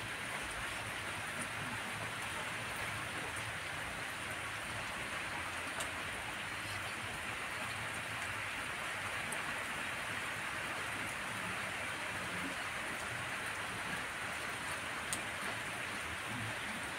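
Steady rain falling on trees and leafy plants, an even patter and hiss of a light storm shower with no let-up.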